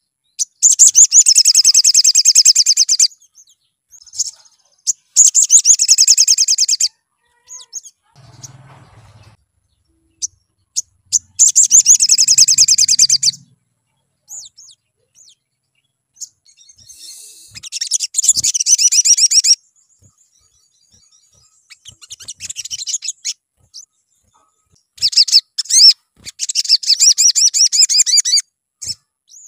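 Male olive-backed sunbird singing: about six loud, high-pitched phrases of rapid, trilled notes, each two to three seconds long, with pauses of a few seconds between them.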